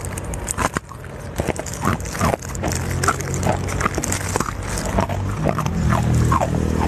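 Biting and crunching into a large block of ice, a string of sharp irregular cracks and crunches up close, over a steady low hum that grows louder near the end.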